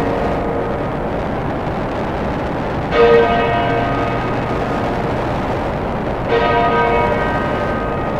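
A bell tolling twice, about three seconds apart, each stroke ringing out and slowly fading, over a steady dense noise drone in a dark ambient piece.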